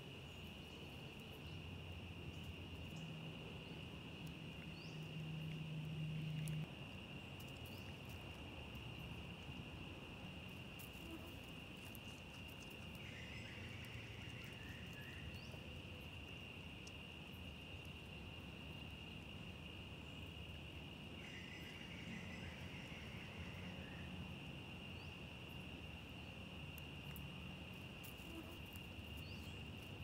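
Insects droning steadily at one high pitch. A low hum swells underneath and cuts off suddenly about six seconds in.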